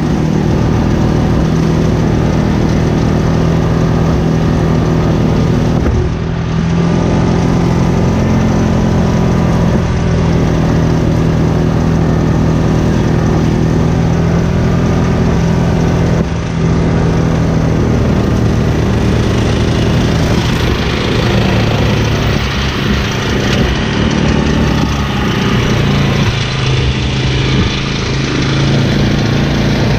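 Steady engine noise of a pull-behind brush mower rig at work in tall grass, with two brief dips in level and more hiss in the second half.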